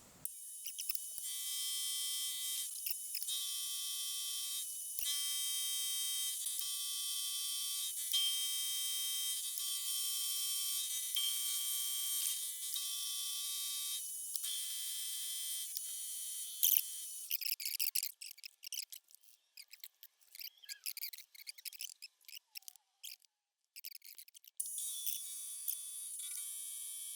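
Milling machine spindle running fast with a 7/16 inch end mill, giving a steady high-pitched whine with brief dropouts. About two-thirds through, the whine breaks off for several seconds into choppy, stop-start hiss, then comes back near the end.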